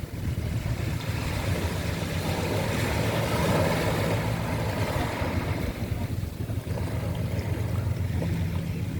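A boat engine running steadily in a harbour, with sea water washing over it that swells a little about three to four seconds in.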